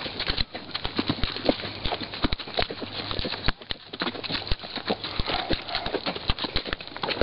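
Horse hooves clip-clopping on hard, stony desert ground, an irregular run of several hoof strikes a second.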